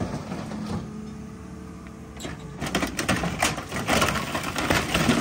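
Excavator's diesel engine running while its bucket comes down on a wrecked car body, crushing it: sheet metal and glass crunch and crack in a dense run of sharp snaps from about two and a half seconds in.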